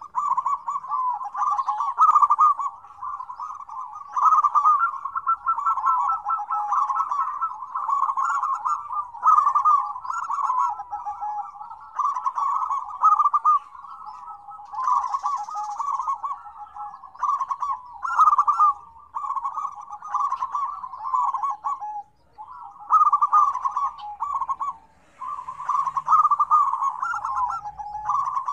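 Several zebra doves cooing at once, their rapid staccato coos overlapping into a near-continuous chorus, with two brief pauses in the last third.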